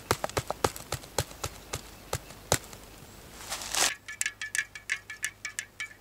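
Foil pouch crinkling while freeze-dried milk is shaken out into a mug of coffee. About four seconds in it gives way to a spoon stirring the coffee, clinking quickly and evenly against the side of the camp mug, about five times a second.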